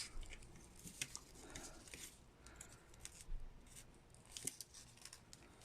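Faint, scattered clicks and light rubbing of plastic action-figure parts being handled as a glued hand is fitted onto the arm.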